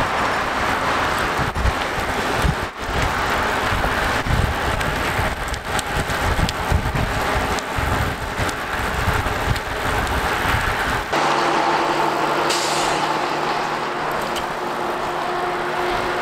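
Wind buffeting a moving microphone over road traffic noise, with a truck passing. About eleven seconds in the buffeting stops and a steady engine hum takes over.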